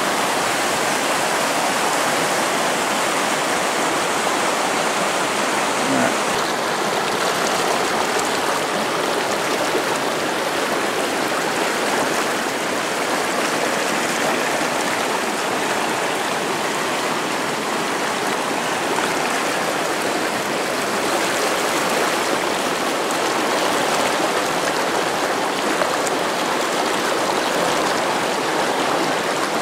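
Mountain river rapids running high after heavy rain: a steady, even rush of white water over rocks.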